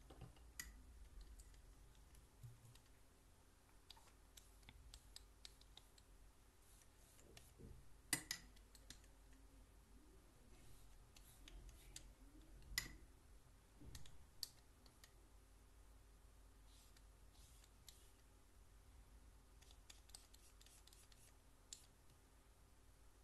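Near silence with faint, scattered clicks and small taps from watercolour painting tools being handled at the desk; two sharper clicks stand out about 8 and 13 seconds in.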